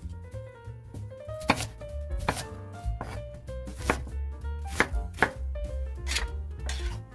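Chef's knife chopping onion on a wooden cutting board: about eight sharp knocks of the blade against the board, irregularly spaced about a second or less apart.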